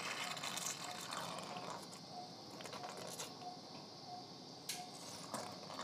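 Surgical suction drawing saline lavage fluid out of a dog's open chest cavity, a wet, noisy sucking sound. A patient monitor beeps faintly about every two-thirds of a second.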